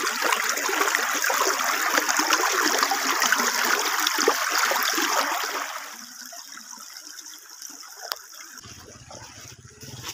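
Shallow river rushing over stones, loud and steady. About six seconds in it drops away to a much quieter background, with a single sharp click about two seconds later.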